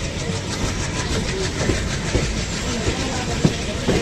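Moving passenger train: steady rumble and rushing noise of the coach running along the track, with wheels clicking over rail joints and a sharp knock about three and a half seconds in.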